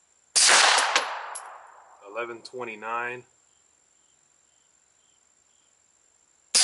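Two suppressed 9mm shots from a Glock 19 fitted with a SilencerCo Octane 45 suppressor, firing 115-grain Tula rounds that clock just over the speed of sound. One shot comes about a third of a second in and the other right at the end; each is a sharp report with a ring-out lasting over a second. A couple of light metallic clinks follow the first shot.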